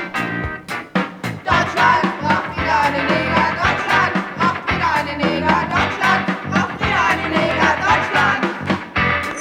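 Rock band music playing without words: drums beating steadily under electric guitar and bass.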